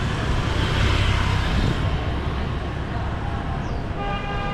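Busy street traffic: a steady rumble and hiss of passing vehicles, with a short horn toot near the end.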